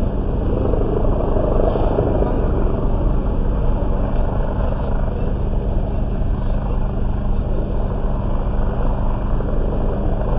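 A steady engine drone with a constant low hum, running unchanged throughout.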